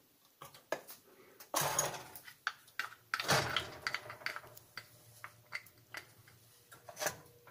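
A spoon stirring spinach soup paste in a stainless-steel saucepan: irregular scraping strokes and light clicks of the spoon against the pot.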